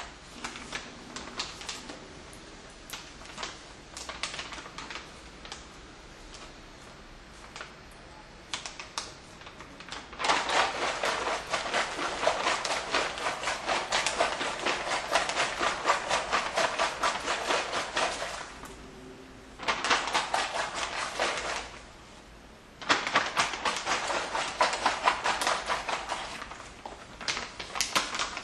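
Paper airsickness bag being handled and unfolded: crinkling and crackling paper, sparse and soft for about the first ten seconds, then loud and continuous with two short pauses.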